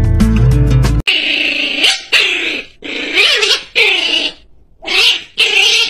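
Guitar music for about the first second, then a small chihuahua-type dog being held on its back gives a run of about six drawn-out whining cries. Each cry rises and falls in pitch, with short breaks between them.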